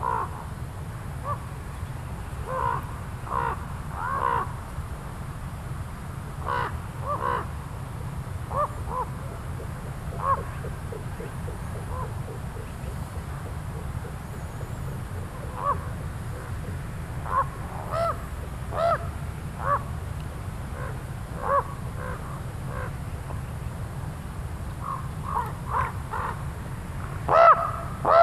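Common ravens calling, short croaking caws scattered every second or two, with a louder bunch of calls near the end, over a steady low hum.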